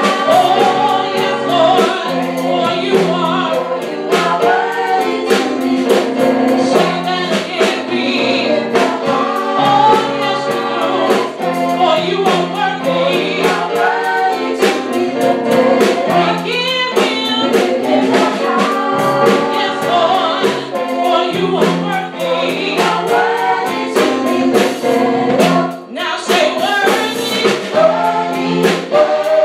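Three women singing a gospel praise song together into microphones, over music with a steady beat.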